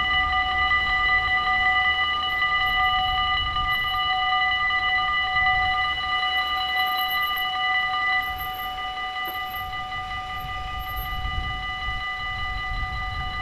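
Dutch level crossing warning bells ringing steadily while the red-and-white barriers lower across the road. About eight seconds in, once the barriers are down, the ringing drops to a lower level and carries on.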